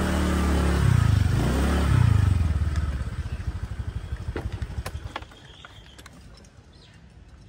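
Motorbike engine running, its pitch rising and falling about one to two seconds in. It then pulses and dies down to a low level about five seconds in, leaving a few faint clicks.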